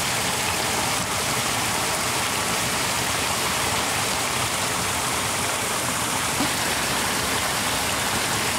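Steady rush of running water: thin streams pouring off a mud bank into a muddy pool.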